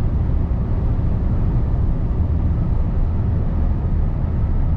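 Steady engine and road noise inside the cab of a semi-truck on the move, heaviest in the low end.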